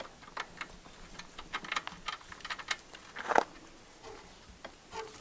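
Irregular light metallic clicks and ticks, with one louder knock about three and a half seconds in: bolts being fitted and started into their threads while mounting an engine.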